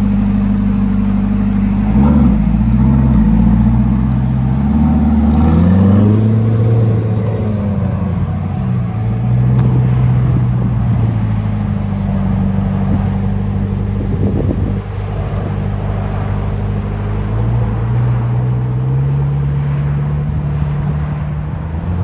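Chevrolet Corvette Stingray C8's 6.2-litre V8 exhaust note as the car pulls away and drives off. The pitch rises and falls several times in the first six seconds or so, then holds steady.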